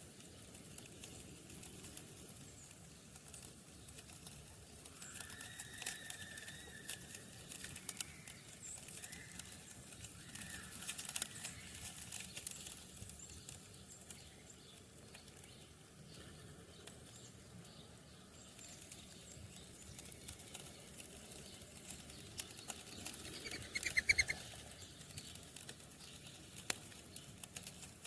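Sparrows and doves feeding: frequent wing flutters and light ticking, with a few short chirps about five seconds in and a quick run of chirps near the end.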